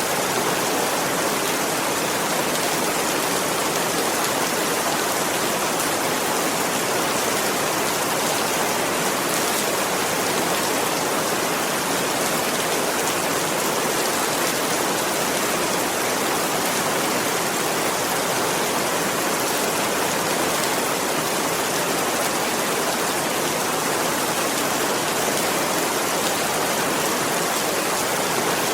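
Steady rain: a dense, even hiss of falling rain with no single drops standing out and no change in intensity.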